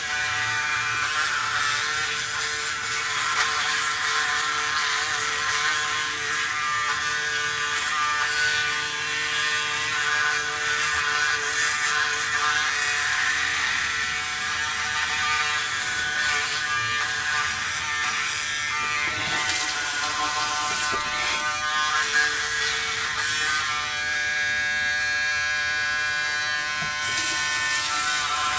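Braun Series 7 360 Flex electric foil shaver switched on right at the start and running steadily with an even, pitched buzz while it is worked through shaving gel on the face in a wet shave. The buzz turns rougher and noisier for a few seconds past the middle and again near the end.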